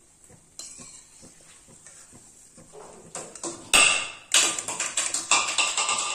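Slotted steel ladle scraping, knocking and rattling against a steel kadai as a nest of frying omapodi sev is turned and lifted out of hot oil. The clatter starts about three seconds in, with one sharp loud knock and a short metallic ring.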